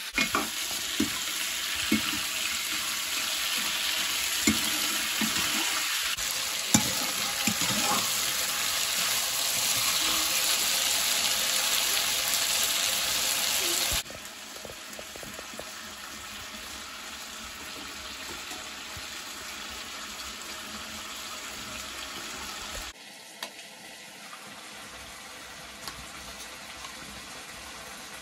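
Food frying in oil in a steel pan over a wood fire, with a steady sizzle and a few sharp knocks of a metal spatula against the pan. The sizzle drops suddenly to a quieter level about halfway through, and lower again near the end.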